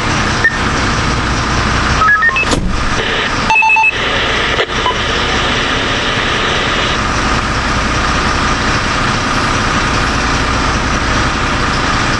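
MAN fire engine's diesel engine idling steadily, heard from inside the cab. A few short electronic beeps sound about two and about three and a half seconds in.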